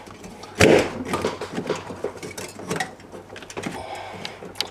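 Aluminium finned evaporator coil of a Samsung fridge being pushed and worked back onto its plastic mounting lugs: a sharp knock about half a second in, then scattered light clicks and rattles.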